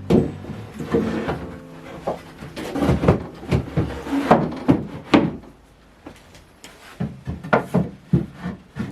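Wooden drawers being handled in a bench frame: a string of irregular wooden knocks and short scrapes, busier in the first half and sparser and quieter near the end.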